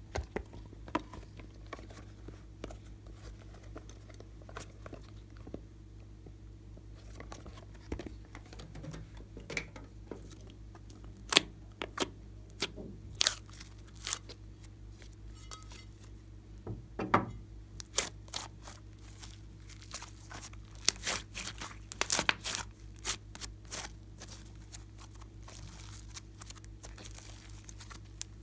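Glossy slime being squeezed, folded and stretched by hand, with sharp sticky pops and crackles, most of them in the middle part.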